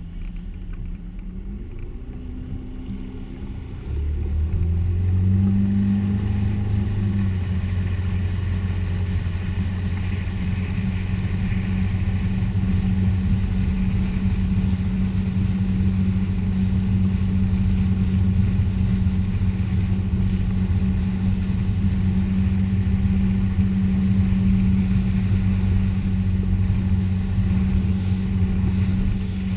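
Motorboat engine running under way, heard from on board over the rush of water and wind. About four seconds in the engine note jumps louder and climbs as the boat speeds up, then holds steady at cruising speed.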